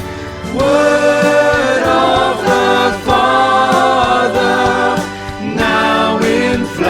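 Choir singing a Christmas carol in long held notes, phrase after phrase with short breaths between.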